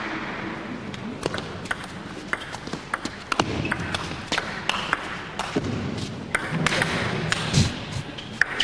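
Table tennis ball clicking off the bats and the table in a long, fast rally. The clicks are sharp and come at an uneven pace, about two or three a second.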